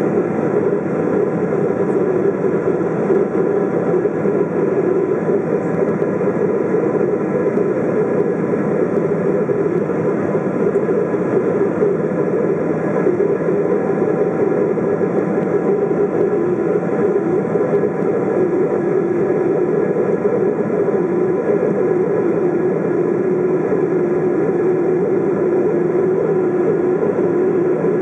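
Steady cabin roar of a Boeing 777-200's GE90 turbofan engines and rushing air during the climb after takeoff, heard inside the cabin beside the wing, with a few faint steady whining tones above the roar.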